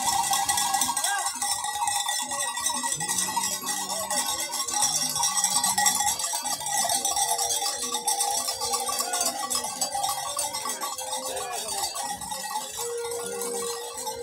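Many metal bells clanking and jangling together without a break, with people's voices calling over them and long held calls in the second half.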